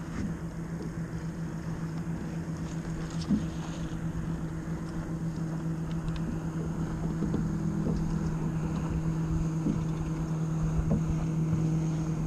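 A steady low boat-motor hum with a second, higher tone above it, growing slightly louder near the end, over wind and water noise; a few faint clicks.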